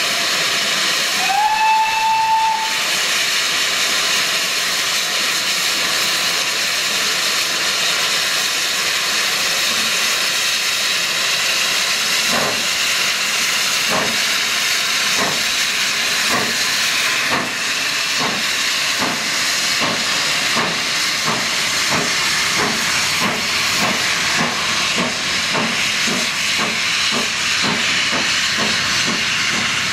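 GWR Castle Class 4-6-0 steam locomotive 5043 Earl of Mount Edgcumbe gives one short whistle about a second in over a steady hiss of steam. From about twelve seconds in its exhaust beats begin and quicken as it starts away with its train.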